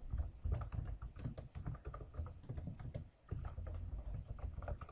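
Typing on a computer keyboard: a run of quick keystrokes, with a brief pause about two thirds of the way through.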